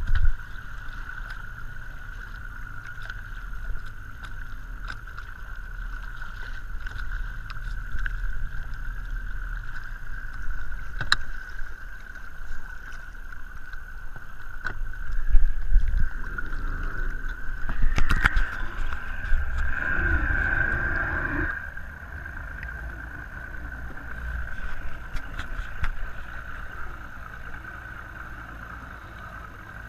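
Water lapping and sloshing against a bass boat's hull at the waterline, over a steady whine and low rumble. From about halfway through, a louder stretch of knocks and rubbing lasts several seconds.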